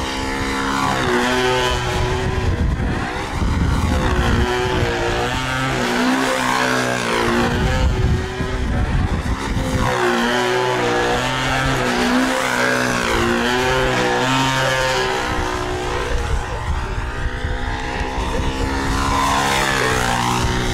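Engine of a control-line aerobatic (F2B) model airplane running continuously, its pitch rising and falling every couple of seconds as the model circles and flies manoeuvres around the pilot.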